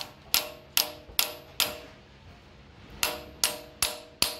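Ball-peen hammer tapping a socket held against a pilot bearing, driving the bearing into the end of an engine's crankshaft until it seats. Sharp metallic taps with a short ring, about two and a half a second: five, a pause, then four more.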